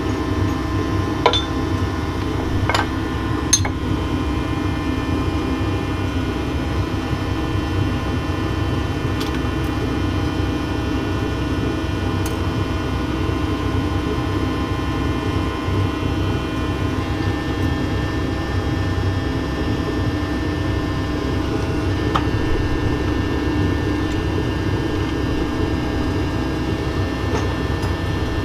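Steady workshop machinery hum with several held tones. A few sharp metal clicks and knocks sound in the first few seconds and once more about two-thirds of the way through, as the steel die parts and core pins of a gravity die-casting machine are handled.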